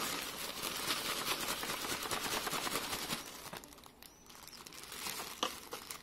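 Thin plastic bag crinkling and rustling as it is held around a cordless stick vacuum's dust cup while the cup is emptied; the crinkling dies down about three and a half seconds in, and a light click follows near the end.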